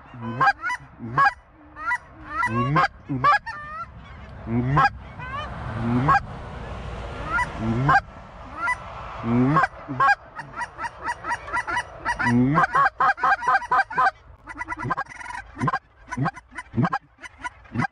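Canada geese honking, many short calls overlapping, quickening into a rapid run of honks and clucks about twelve seconds in.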